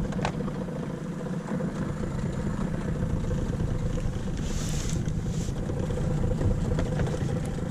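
Small boat's motor running steadily: a low rumble with a constant hum.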